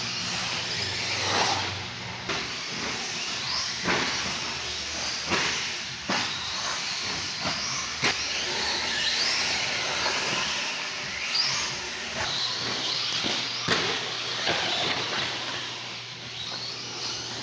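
Electric R/C short course trucks and buggies running on an indoor dirt track: a steady hiss of motors and tyres, with rising whines as cars speed up and several sharp knocks.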